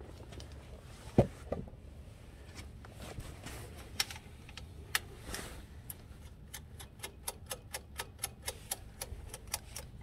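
A knock about a second in, a few scattered clicks, then a steady run of sharp clicks, about four a second, from hands working the rear chain adjuster at a Honda Trail 125's rear axle as the chain is taken up.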